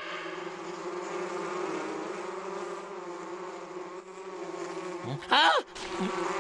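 Cartoon sound effect of hornets' wings buzzing steadily as they hover. About five seconds in, a short, loud sound rises and falls in pitch.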